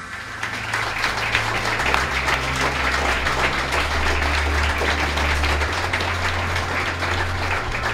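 Audience applauding: dense, steady clapping that swells in about half a second in, over low held bass notes of background music.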